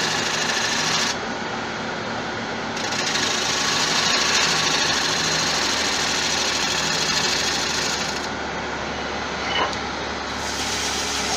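Wood lathe running with a gouge cutting the outside of a spinning bowl: a steady hiss of the cut over the motor's hum, which twice eases off for a second or two as the tool lifts, then resumes. A short tick about two-thirds of the way in.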